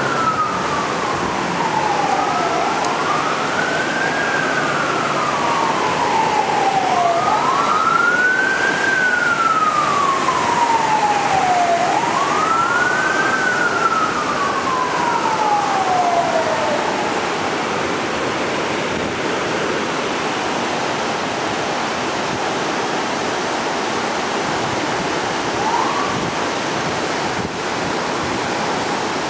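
Emergency vehicle siren wailing, each cycle a quick rise and a slow fall, repeating about every four and a half seconds, over the steady rush of fast-flowing floodwater. The wail dies away about halfway through, leaving only the rushing water, with one short rising siren note near the end.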